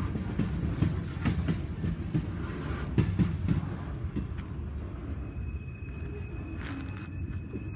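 Railroad cars rolling past, their wheels knocking over rail joints for about four seconds before the sound fades to a quieter rumble.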